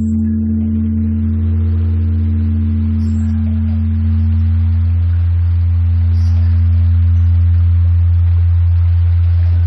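Large bronze Korean Buddhist temple bell (beomjong) ringing on after a stroke: a deep steady hum carries through, while its higher overtones fade away over the first second or so.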